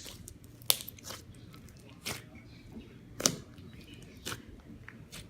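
Slime being squeezed and worked by hand, giving scattered sharp clicks and pops, about six in all.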